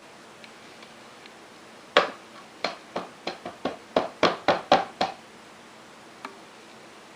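A kitchen sieve of wet sluice concentrates knocked about eleven times in quick, uneven taps against its pan, shaking the fine material through the mesh. The first knock is the loudest, with one faint tap a little later.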